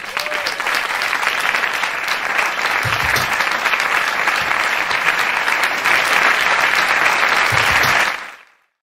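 Audience applauding loudly, a dense, steady clapping that cuts off suddenly near the end.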